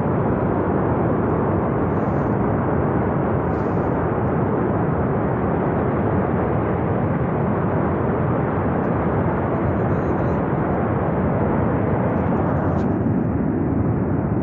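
Flash flood of water and debris rushing down a narrow mountain gorge: a loud, steady, dense rushing rumble with no let-up.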